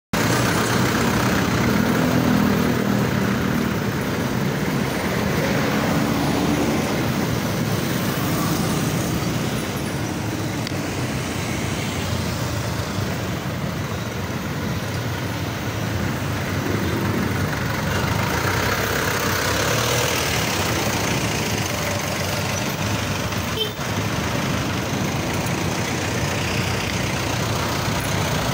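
Busy street traffic heard from a bicycle: the engines of jeepneys and other vehicles running close by over a steady road noise.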